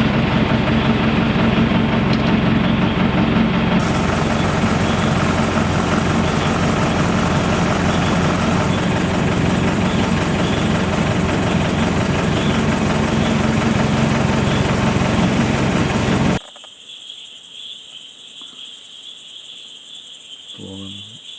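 A safari jeep's engine idling steadily, then stopping abruptly about three quarters of the way through, leaving crickets chirring.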